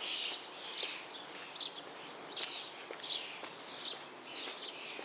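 Birds chirping: a quick series of short high calls, each dropping in pitch, about two a second, over a faint outdoor background hiss.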